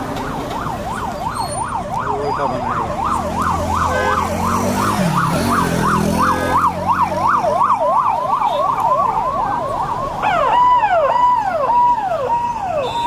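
Vehicle sirens: one wails in a fast yelp, about three sweeps a second. About ten seconds in, a second siren joins with slower falling sweeps, over the low rumble of passing vehicles.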